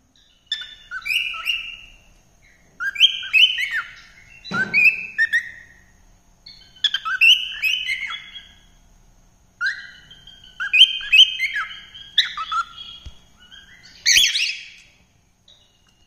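Cockatiel singing: five runs of quick whistled chirps, each a couple of seconds long, with short pauses between them.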